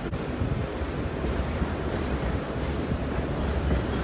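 Passenger train rolling slowly, heard from inside a coach: a steady low rumble of the running gear, with a thin high-pitched wheel squeal that comes and goes and holds for the second half.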